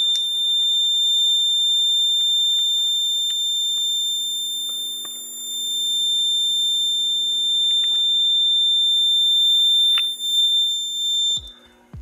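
Kidde FX-64 fire alarm control panel's built-in buzzer sounding one steady high-pitched tone during a lamp test. It cuts off shortly before the end as the test finishes.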